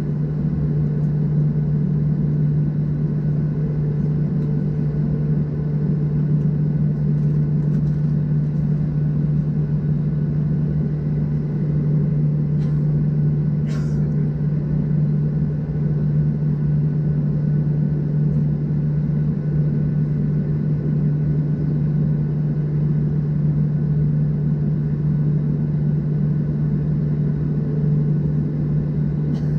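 Steady low drone and hum inside the cabin of a Boeing 737-700 standing on the ground, unchanging throughout, with a brief faint click about 14 seconds in.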